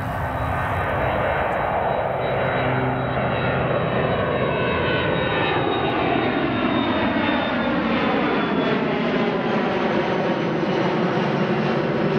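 Boeing 737-300's CFM56-3 turbofan engines at climb-out thrust as the jet passes overhead: a steady, loud jet roar with a high fan whine. The roar takes on a shifting, phasing sweep as the plane goes by.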